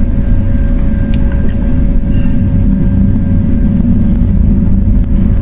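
Steady low rumble with a faint constant hum from background machinery or fan noise. A few faint clicks come through it, keycaps being pried off a MacBook Pro A1708 keyboard.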